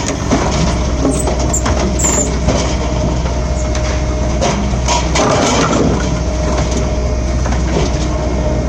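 F500 firewood processor running with a steady machine drone, with scattered sharp cracks and crunches as logs are cut and split by its hydraulic splitter.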